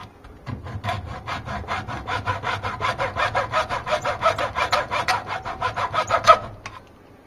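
Hacksaw cutting away the protruding rib inside a power jack, with rapid short back-and-forth strokes at about five a second that stop near the end.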